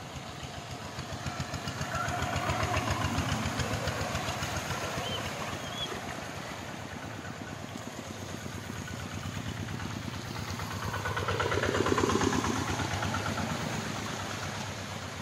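Single-cylinder diesel engines of two-wheel hand tractors (koyun) chugging steadily as they pull loaded trailers through floodwater on the road. One grows louder around 11–13 s as it comes up close.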